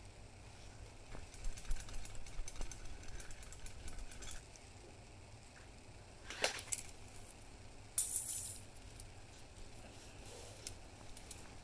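Scattered light clicks and rattles of thin metal umbrella ribs being handled, with a sharper click about six and a half seconds in and a brief rustling hiss at about eight seconds.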